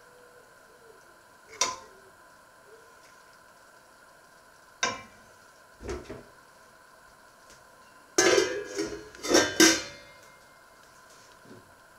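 Stainless steel ladle clinking against a stockpot and soup bowl a few times, then a stainless pot lid clattering onto the stockpot for about two seconds, the loudest sound, near the end.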